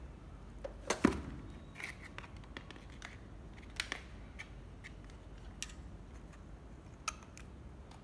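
A few sharp clicks and knocks from handling a cordless hammer drill, hard plastic and metal parts tapping. The loudest knock is about a second in, with single clicks spread through the rest, over a low steady background hum.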